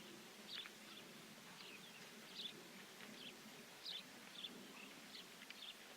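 Faint bird chirps, a dozen or so short high calls at irregular intervals, over an otherwise near-silent background.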